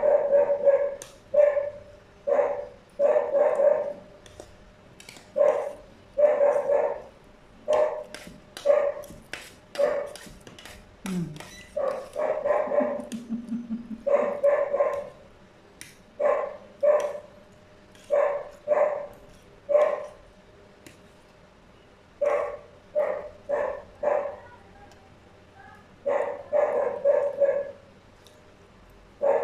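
A dog barking over and over: short barks, roughly one a second and sometimes in pairs. Between about 8 and 11 seconds in, a run of sharp clicks of cutlery on plates.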